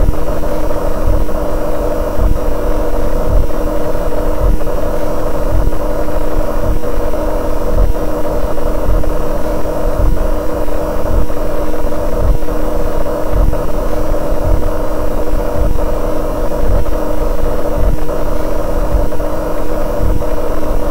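Fluorescent light hum, electronically enhanced into a loud, steady drone: several steady tones over a rough low rumble.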